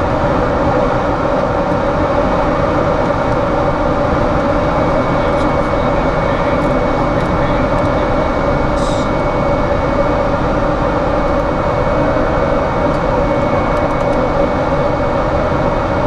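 Steady drone of aircraft cockpit noise in flight: engine and airflow noise with a constant hum and a thin high tone running through it. A brief faint hiss about nine seconds in.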